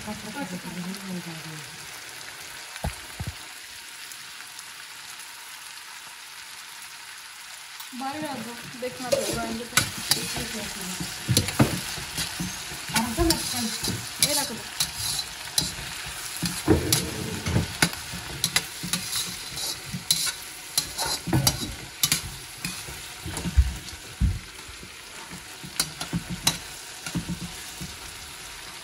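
Diced onion and bell peppers sizzling in a hot oiled metal wok. A steady hiss for the first few seconds, then a spatula stirs and scrapes them against the pan with many quick clicks and scrapes.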